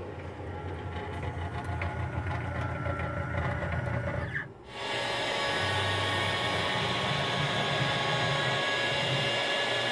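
DeWalt router spindle on a small 3040 CNC machine running steadily as it cuts a thin strip of luan plywood. The sound drops out briefly about four and a half seconds in, then comes back louder and hissier.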